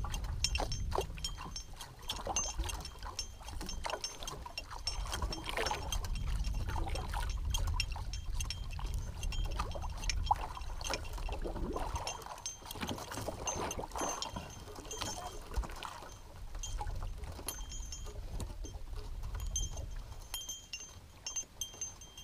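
Wind buffeting the microphone and water splashing against the hull of a small outrigger fishing boat at sea. A faint high ringing comes and goes.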